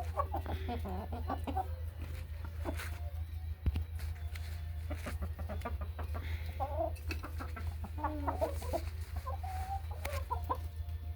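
Domestic chickens clucking, short irregular calls overlapping one another, over a steady low hum. A single sharp knock comes a little before four seconds in.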